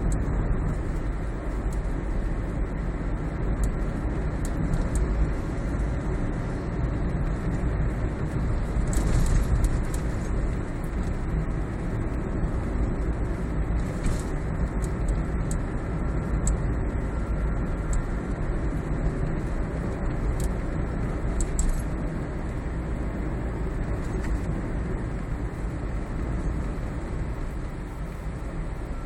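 Road rumble inside a Toyota Prius cabin on the move, with irregular short clicks or rattles heard several times: the abnormal noise from beneath the instrument panel.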